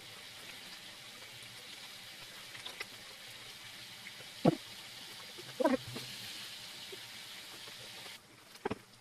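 Faint steady hiss with a few short knocks: one about halfway, a double knock a second later, and one near the end.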